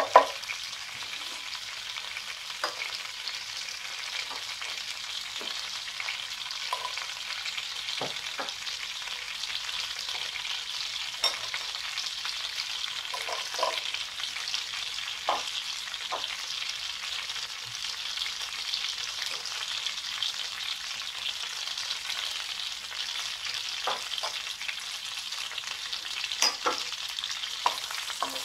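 Melted butter sizzling and foaming in a hot nonstick pan, a steady frying hiss, with garlic cloves and whole mace frying in it. A wooden spoon stirs, giving occasional short knocks and scrapes against the pan, the loudest right at the start.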